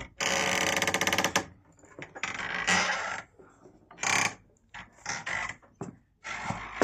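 A door creaking on its hinges as it swings, in several separate creaks. The first lasts over a second with a fast, rattling stutter, and another longer creak starts near the end.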